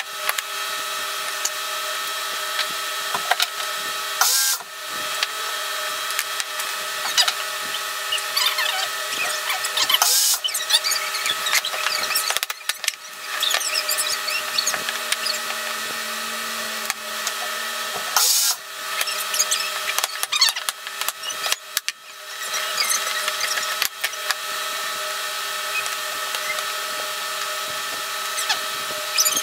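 Workshop sounds of barn-wood frame pieces being knocked and handled on a bench. A power drill runs in short spells, the longest a few seconds starting about halfway through.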